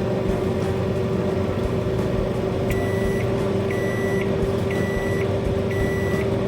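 Microwave oven running with a steady hum, then beeping four times, about once a second, from a little under halfway in.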